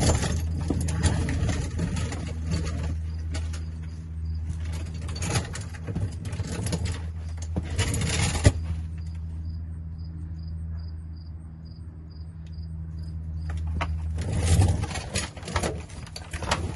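Metal tools clinking, rattling and scraping as they are handled against a rusty exhaust pipe, in bursts about five to eight seconds in and again near the end, over a steady low hum.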